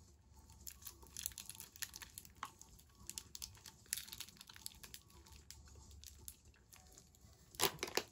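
Plastic candy wrapper crinkling and crackling as a caramel wafer candy is opened and handled, with crunching as it is eaten; a louder crackle comes near the end.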